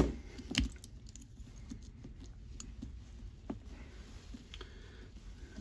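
A last tap of a plastic-faced hammer on a screwdriver used as a chisel right at the start, and a softer knock about half a second in. After that come only faint scattered clicks and rubbing as the brass lock cylinder is handled and turned in the fingers.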